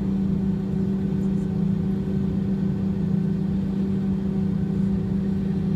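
Steady cabin hum inside an Airbus A320-214 taxiing after landing, its CFM56 engines running at low power: a strong low hum with a few fainter steady whines above it.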